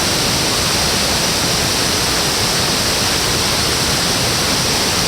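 A waterfall's steady rush of falling water, an even noise with no breaks.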